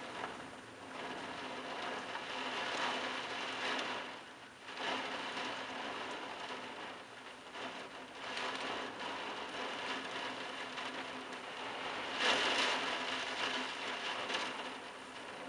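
Heavy storm rain pouring down on clay-tiled roofs, a steady hiss that swells and eases in gusts. The rain is loudest about twelve seconds in.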